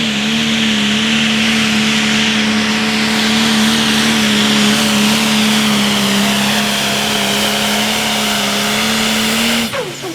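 Turbocharged diesel engine of a John Deere Pro Stock pulling tractor running flat out at a steady pitch under load, with a high turbo whine above it. Near the end the throttle is chopped and the engine note drops away suddenly.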